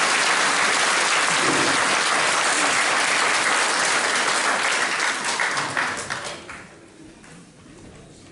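Audience applauding, thinning to a few last claps and dying away about six seconds in.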